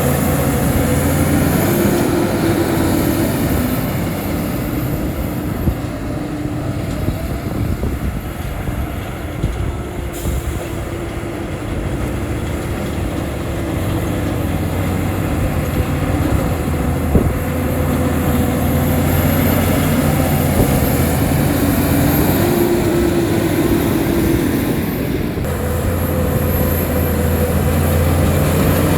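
Shantui crawler bulldozer's diesel engine running under load, its pitch sagging and rising again as the work load changes, with a few sharp metallic clanks from the machine.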